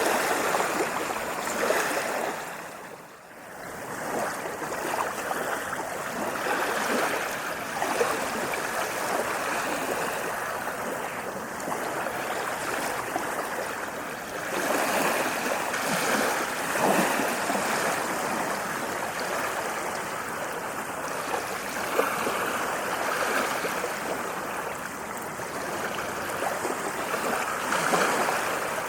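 Ocean waves washing onto a sandy beach in a continuous surging wash, with a brief lull about three seconds in and swells as waves break.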